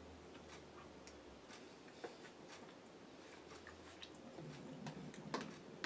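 Faint chewing with small scattered clicks, as a man eats a mouthful of food.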